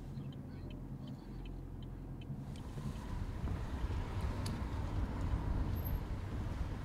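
A car running: a steady low rumble of engine and road noise, with a few light ticks in the first two seconds, growing louder about three seconds in.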